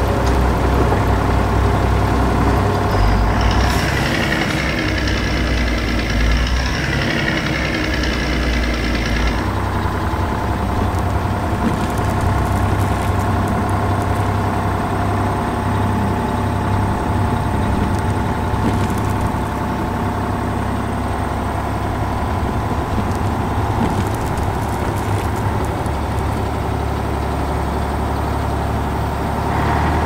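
Engine of a heavy machine running steadily. From about four seconds in to about nine seconds a higher hissing, whirring sound joins it, then cuts off sharply.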